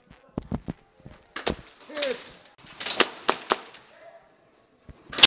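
Airsoft gunfire in close quarters: sharp pops and cracks in scattered groups, with the loudest shot near the end.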